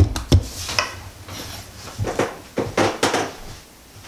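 Two sharp knocks as a Kiev 60 camera is handled and set down on a wooden table, then a few clunks and rustles as a person gets up and moves away.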